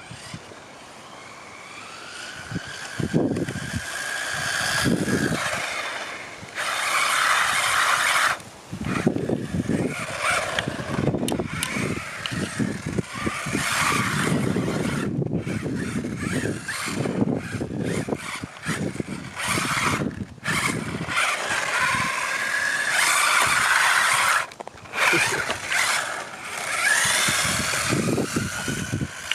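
Brushless electric motor of a UDIRC Breaker Drift Truck Pro 1601 RC car whining as it accelerates and eases off in repeated passes, the pitch rising and falling with the throttle, over the rush of its tyres on tarmac.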